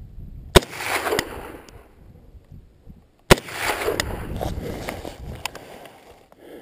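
Two gunshots about two and a half seconds apart, each followed by about a second of fading echo.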